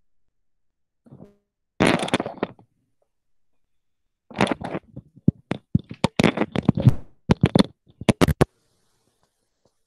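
Handling noise on a device microphone: irregular rubbing and knocking bursts, one cluster about two seconds in, then a quick run of short bursts, as the phone or laptop is moved around.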